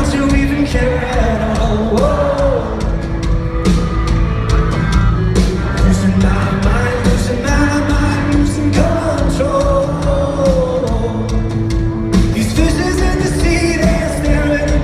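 Live rock band playing a song with a sung melody over drums.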